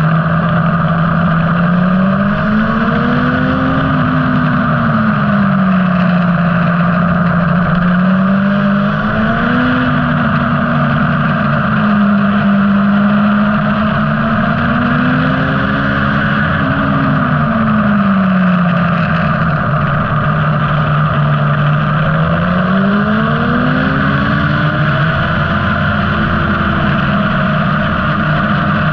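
Motorcycle engine at speed on a racetrack, its pitch rising as the rider accelerates and falling as he eases off, several times over, with a steady rush of wind noise throughout.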